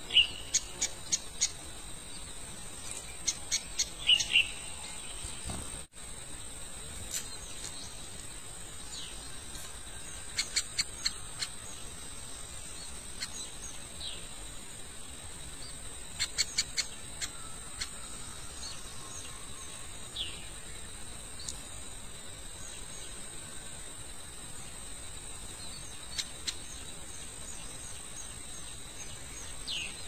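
Small birds calling at a nest: short downward chirps every few seconds and quick runs of sharp ticks, the busiest runs about ten and sixteen seconds in. A steady high-pitched hum runs underneath.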